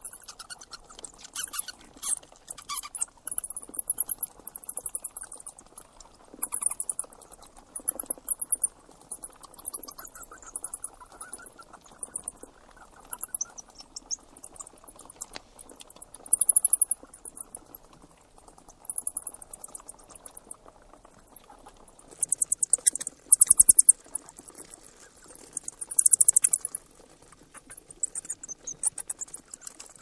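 Rat squeaking: short bursts of rapid, high-pitched chirps, repeating every second or two with brief gaps between.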